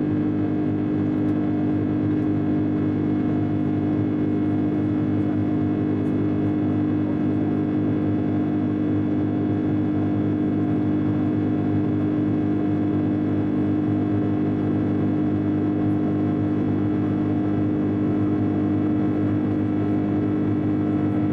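Airbus A330-200 jet engines and airflow heard inside the passenger cabin during the climb after takeoff: a steady drone with a strong low hum.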